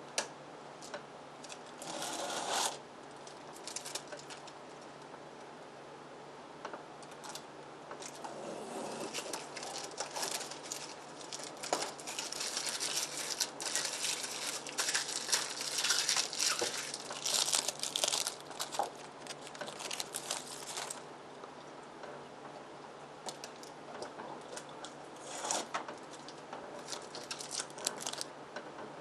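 Rustling, crinkling and scraping noise with scattered clicks from taking the cover off an air conditioner sleeve. It is busiest from about eight to twenty-one seconds in, with shorter bursts near the start and the end.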